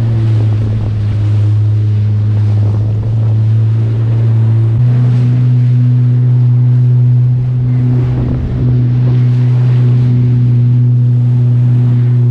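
Jet ski engine running hard at steady revs, its pitch stepping up once about five seconds in and then holding, with water rushing past.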